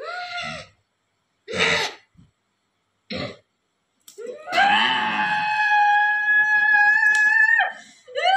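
A woman screaming: three short cries, then from about four seconds in a long, high scream held steady for over three seconds that breaks off, with another beginning right at the end. She is in what the healers treat as a kuntilanak spirit possession during an exorcism.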